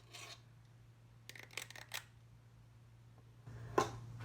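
A few short clicks and rustles of kitchenware being handled, the loudest one near the end, over a low steady hum.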